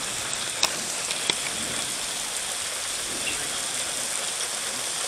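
Heavy rain falling steadily, a downpour, with two sharp clicks about a second in.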